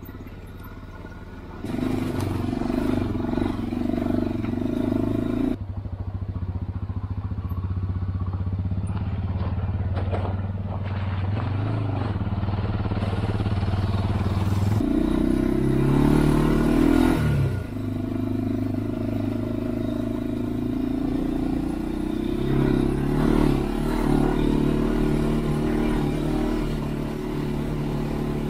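Honda 400EX ATV's single-cylinder four-stroke engine running as it is ridden slowly over rough dirt trail, the engine note rising and falling with the throttle, with a couple of brief swells in pitch.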